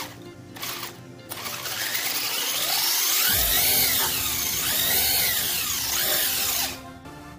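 Racerstar brushless electric motor of a 1/10 RC truck revved by the transmitter throttle. It gives a whine that rises and falls in pitch twice, from about a second in until near the end, over background music.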